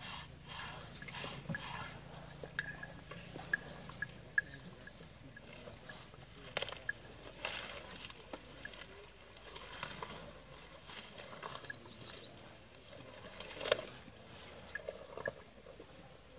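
Faint outdoor ambience with short high bird chirps and a few scattered knocks and rustles, the sharpest knock near the end.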